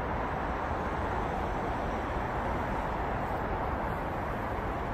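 Distant road traffic: tyres and engines of many cars blending into one steady, even wash of noise, with no single vehicle standing out.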